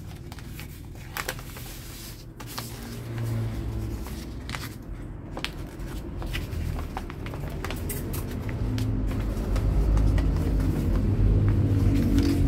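Greaseproof paper crinkling and rustling in short crackles as hands fold it into a food wrap, over background music that grows louder toward the end.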